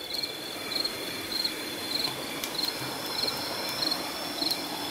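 Night insects calling: a short trilled chirp repeating about every half-second over a steady high-pitched buzz, with a stream flowing softly beneath.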